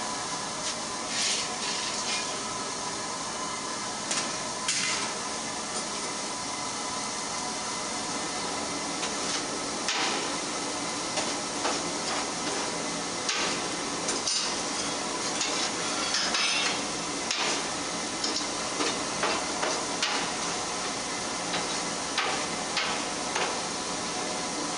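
Coal forge running with a steady rushing hiss of fire and air. Scattered sharp metallic clinks and scrapes come every second or two as an iron tool works the coals in the firepot.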